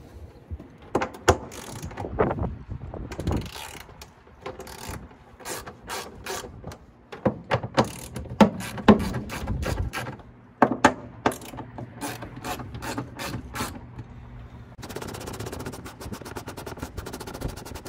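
Ratchet wrench clicking as the bolts holding a toolbox mounting plate to the pickup bed are backed out, among scattered knocks and clacks of tool and metal. Near the end the clicks come fast and even as the ratchet is worked steadily.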